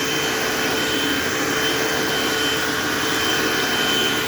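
Eureka AirSpeed AS1101 upright vacuum cleaner running steadily on a floor, its motor giving an even whine over a rush of airflow.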